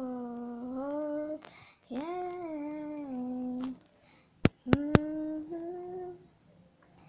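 A young girl humming a slow, sad melody without words, long held notes in phrases with short breaks between them. About four and a half seconds in, three sharp clicks come close together.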